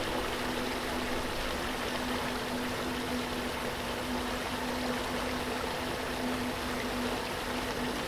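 Water of a cascading waterfall rushing steadily over rock ledges, an even unbroken hiss of falling and splashing water. A faint low steady tone runs underneath.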